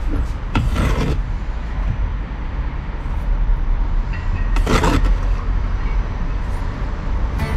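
Water sloshed in a gold pan while panning concentrate, two short splashy swishes about a second in and near five seconds in, over a steady low rumble.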